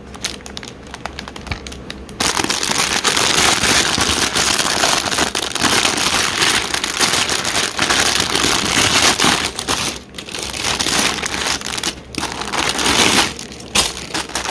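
Plastic LEGO parts bags crinkling loudly as they are handled and sorted. The crinkling is quieter for the first couple of seconds, then goes on almost steadily with short breaks.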